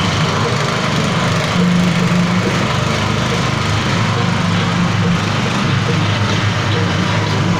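Small single-cylinder petrol engine running steadily, driving a feed mixer.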